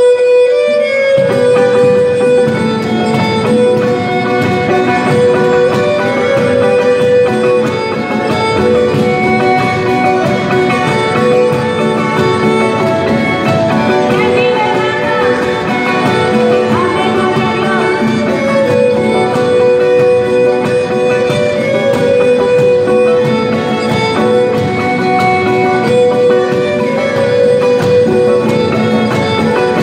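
Live string band playing a lively folk tune: a violin carries the melody over strummed and picked acoustic guitars. The music starts sharply right at the beginning and runs on steadily.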